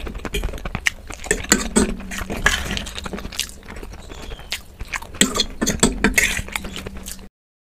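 Close-miked eating: a fork scraping and clicking on a plate, instant noodles being slurped, and wet chewing in a rapid run of small clicks and smacks. The sound cuts off abruptly near the end.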